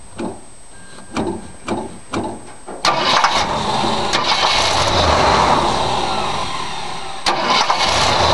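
Starter motor cranking a 1965 Ford 352 V8 that does not fire: a few short bumps of the starter, then a long crank of about four seconds and another starting near the end. The ignition key is switched off on the dash, so there is no spark.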